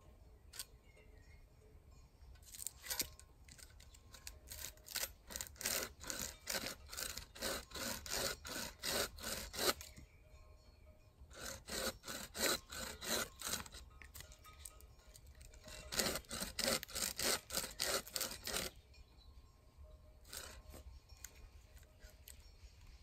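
A hand saw cutting through wood in quick back-and-forth strokes, in three bouts with short pauses between them.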